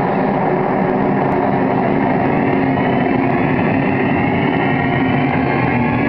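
Large audience in a gymnasium cheering and chattering: a loud, steady crowd din.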